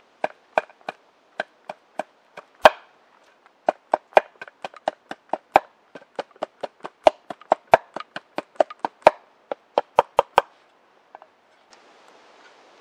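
Knife chopping garlic on a plate: a quick, uneven run of sharp taps, about three or four a second, that stops about ten seconds in.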